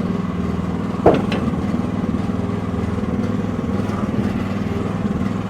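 Small Briggs & Stratton engine of a Shandong HT10 mini excavator running steadily, with a brief sharp squeal about a second in.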